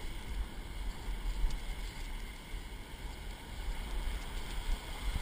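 Ocean surf breaking and washing through the shallows, with wind buffeting the microphone in uneven low gusts.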